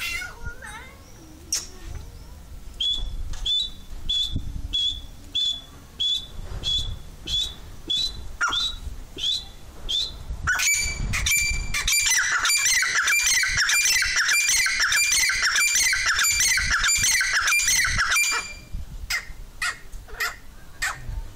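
Partridges calling: a run of short, clipped high calls about two a second, then a loud, fast, unbroken chattering run of calls for about eight seconds, then a few scattered calls again.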